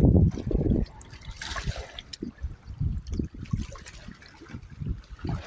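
Water trickling and lapping at the shore, with a loud low rumble in the first second and soft irregular knocks after it.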